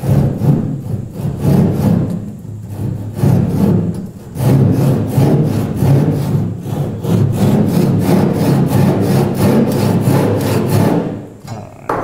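Back saw cutting across a wooden boat gunwale in steady push-and-pull strokes. The strokes come in short runs at first, then a faster even run starts about four seconds in and stops about a second before the end. This is a shallow stop cut about an eighth of an inch deep that marks where chiselling will stop.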